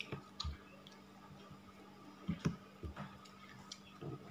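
Light, irregular clicks and taps from apple pieces being handled on a plate, over a faint steady hum.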